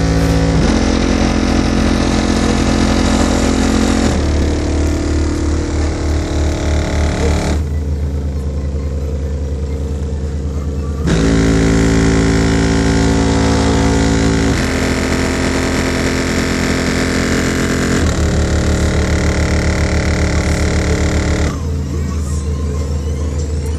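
Loud, bass-heavy music played on a Subaru's car audio system, heard from outside the car. Sustained chords change about every three and a half seconds over a pulsing deep bass.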